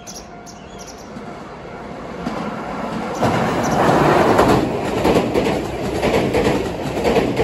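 Train approaching and passing close by, building up to a loud rumble about four seconds in, then carrying on with a rhythmic clatter of wheels over rail joints.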